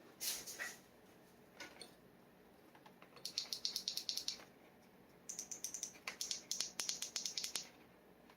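Steel G nib dip pen scratching across paper in quick hatching strokes, about ten a second. There is a run of strokes about three seconds in lasting a little over a second, and a longer run of about two seconds starting around five seconds in, with a few fainter strokes near the start.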